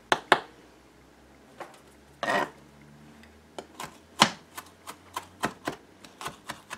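Kitchen knife chopping fresh parsley on a plastic cutting board: sharp taps of the blade striking the board, a few spaced apart at first, then a quicker run of about three or four taps a second in the second half.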